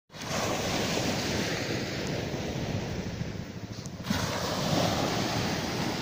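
Small waves breaking and washing up a sandy beach, with wind buffeting the microphone. The wash eases briefly, then a fresh wave surges in at about four seconds.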